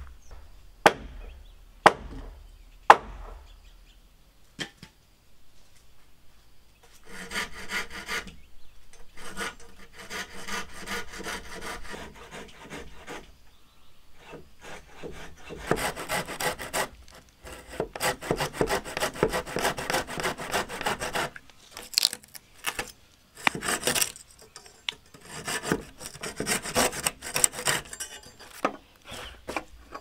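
Three sharp wooden knocks at the start, then a folding hand saw cutting through the end of a wooden tenon. The saw goes in bursts of quick back-and-forth strokes with short pauses between them.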